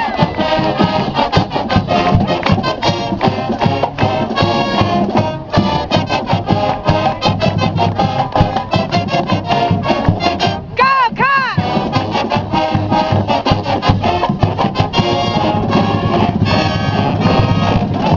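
College marching band playing: brass and woodwinds over dense, fast drumming. About eleven seconds in there is a brief run of swooping pitch bends.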